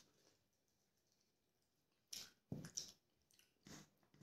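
Wet, squishing eating sounds of rice and chicken curry, in a few short bursts starting about two seconds in.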